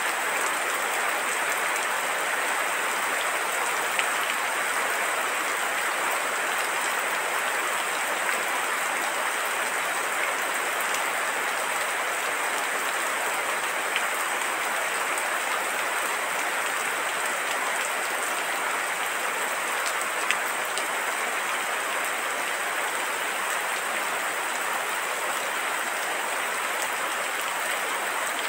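Steady rain falling, an even hiss with no let-up, with now and then a single louder drop ticking out of it.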